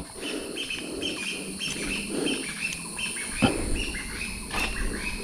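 A bird chirping steadily in short, high notes, about three a second, with a single sharp click about three and a half seconds in.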